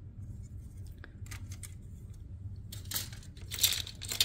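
Plastic model-kit sprues being handled and put down on a table: a few short rustles and light plastic clicks, the loudest about three and a half seconds in.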